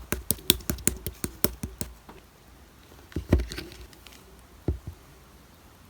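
Slime being pressed and poked by hand, making a quick run of sharp clicks for about two seconds, then two single louder squishes.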